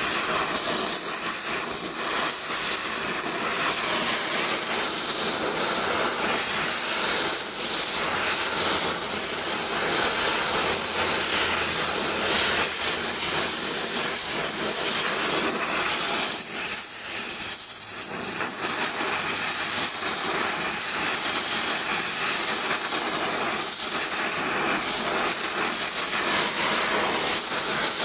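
Oxy-acetylene torch flame hissing steadily as it is played over a gravity mold to melt silver for an ingot.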